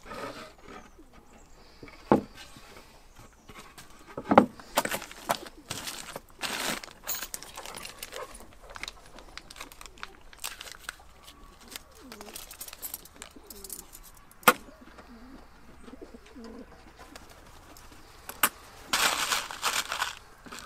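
Hand work on a small pine cabinet door at a wooden table: scattered sharp knocks and clicks as the board and small parts are handled, with rustling. Near the end comes a longer rattle as screws are rummaged from a plastic tub.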